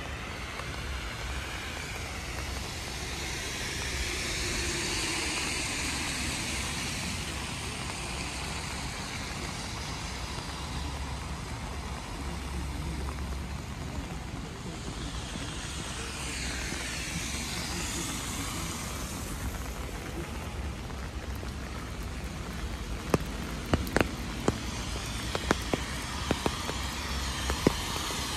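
Cars passing on a wet road, their tyres hissing through standing water, over a steady background of rain; two passes swell and fade, about a quarter and about two thirds of the way in. Near the end comes a scatter of sharp taps.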